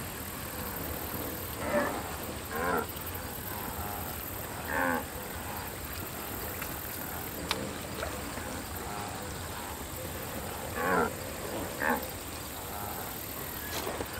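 Cartoon wildebeest grunting: five short calls, a pair early on, a single one, then another pair near the end. A single sharp click comes about halfway through, over a steady background hiss.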